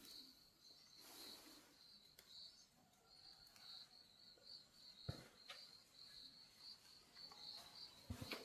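Faint insect chirping, a steady pulsing high trill like crickets, with two soft knocks, one about halfway through and one near the end.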